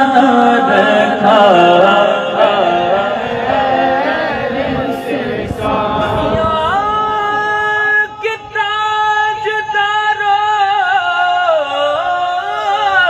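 A man singing a naat unaccompanied into a microphone, drawing out the words in long melismatic lines. About halfway through his voice climbs to a high note held with a slow waver for several seconds, then falls away near the end.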